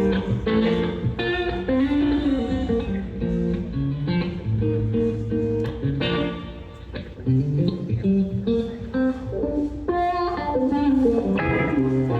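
Electric guitar playing a run of picked notes and chords through an amplifier, with low bass notes underneath.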